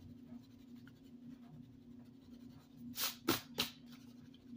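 Pink rubber eraser rubbing pencil lines off sketchbook paper while correcting the drawing: faint scrubbing at first, then three quick, louder strokes about three seconds in.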